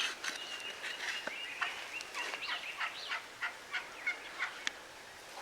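Turkey calling, somewhat faint: a string of short, high call notes repeating irregularly about every quarter second for around four seconds, then stopping.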